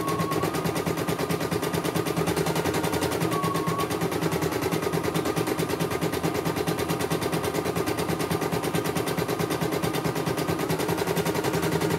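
CNY E900 portable computerised embroidery machine stitching a design, its needle mechanism making a rapid, even rattle of stitches over a steady motor hum.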